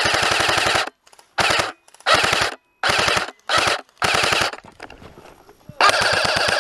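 Airsoft rifle firing on full auto, close to the microphone: a burst ending about a second in, five short bursts, then a long burst starting near the end, each a fast, even rattle of shots.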